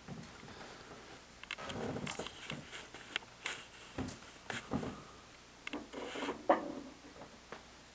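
A cat moving over a couch and blanket: soft rustling and scuffing with scattered small knocks, the loudest a brief sharp sound about six and a half seconds in.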